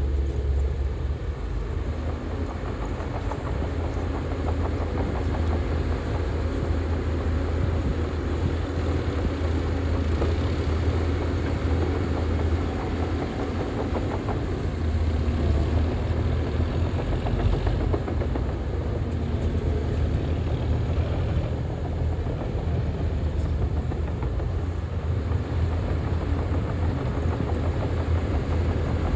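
A heavy diesel engine on a crawler bulldozer runs steadily and loudly with a deep engine note, and the machinery rattles continuously as it works.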